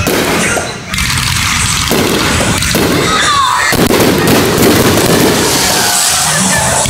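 Aerial fireworks shells bursting overhead: several booms in quick succession.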